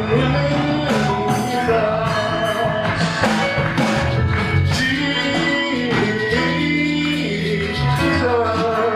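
Church worship band playing without words: held keyboard chords over a bass line, with steady drum and cymbal hits.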